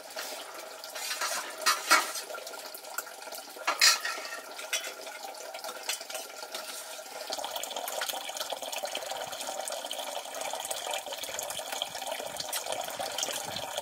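Water splashing and pouring, with a few sharp clinks of pots or dishes in the first few seconds; from about seven seconds a steady stream of running water.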